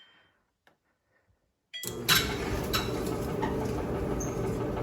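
Whirlpool Duet dryer starting about two seconds in and then running steadily, a low motor and drum hum with a few clicks and knocks. It runs without squeaking, its loose screws now tightened.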